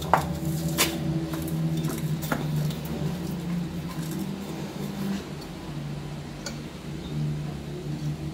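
Salt-stuffed lemon quarters being pushed down by hand into a glass jar: soft squishing, with a few sharp clicks against the glass.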